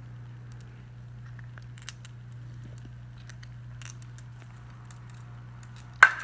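Steady low background hum with a few faint ticks, then near the end a single sharp, loud clack of a marble striking the plastic marble-run track.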